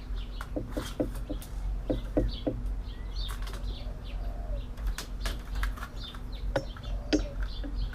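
Scattered clicks and light knocks of computer parts being handled and taken apart, over a steady low hum.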